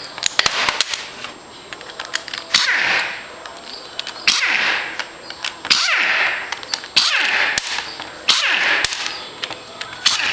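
A handheld air-powered driver runs in about six short bursts, each with a rattling start and a whine that falls as the tool spins down. It is backing out the front head plate bolts of a Sanden 709 A/C compressor.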